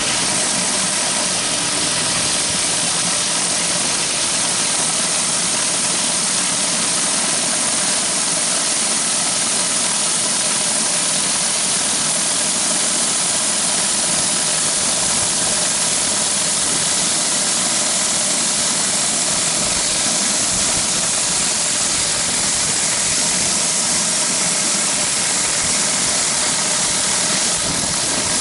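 Pressure washer engine running steadily, with the hiss of water jets from a 14-inch BE Whirlaway surface cleaner being worked over concrete.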